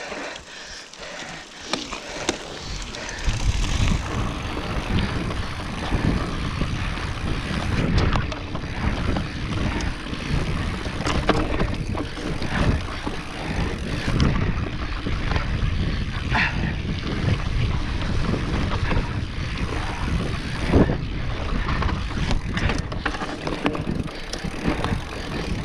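Wind buffeting the microphone of a camera worn by a mountain biker riding a rough dirt singletrack, with the bike rattling and knocking over the bumpy ground. Quieter for the first few seconds, then a loud, steady rumble from about three seconds in, dotted with sharp knocks.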